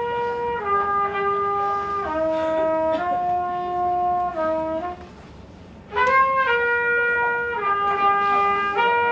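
A single brass instrument playing a slow melody of held notes, stepping down and back up. It breaks off for about a second midway, then starts the same phrase again.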